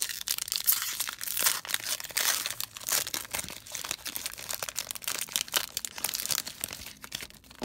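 Foil wrapper of a 2021 Panini Prizm baseball card pack being torn open and peeled back by hand: a dense, crackling crinkle of foil made of many quick snaps.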